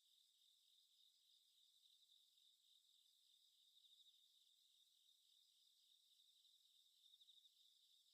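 Very faint crickets chirping in steady, rapid pulses, a quiet night ambience that is otherwise near silence.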